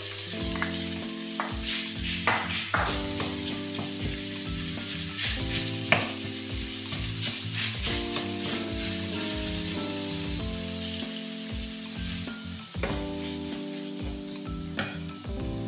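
Minced meat sizzling in hot oil in a frying pan, stirred and pushed around with a wooden spatula, with scattered clicks and taps of the spatula against the pan.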